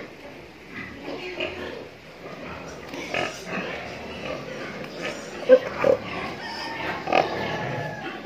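Domestic pigs grunting in a pen, a run of irregular short calls, with a few louder, sharper ones past the middle.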